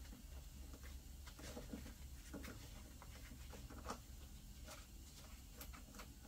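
Faint, scattered clicks and light taps from a gloved hand and small hand tool working on the riding mower's engine parts, over a low steady hum.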